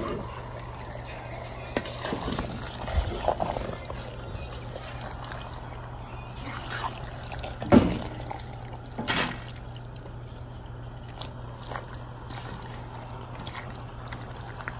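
Wooden spoon stirring thick stewed pork in a frying pan: wet squelching and occasional knocks of the spoon against the pan, the loudest about eight and nine seconds in, over a low steady hum.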